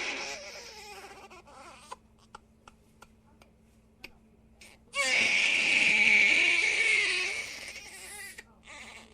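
Infant crying: a loud wail trails off in the first couple of seconds into quiet catching breaths and sobs. About five seconds in comes a second long, loud wail, which fades out near the end.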